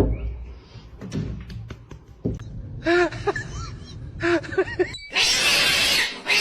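A domestic cat meowing twice, each a short rising-and-falling call, then a loud steady hiss starting about five seconds in.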